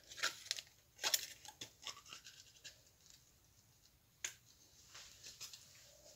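A small plastic drink bottle being handled and its foil lid torn off: short scratchy rustles and clicks, thickest in the first second and a half, with one sharp click about four seconds in.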